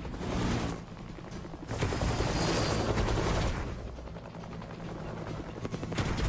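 Helicopter rotors chopping in rapid pulses, swelling loud twice and dropping back between, mixed with a music track.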